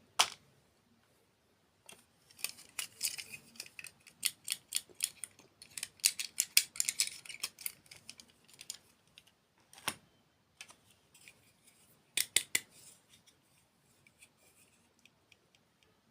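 Close-up eating sounds: a run of crisp crunches and cracks as a crunchy dessert is bitten and chewed, dense for several seconds, then a single crack and a short burst of crunches near the end.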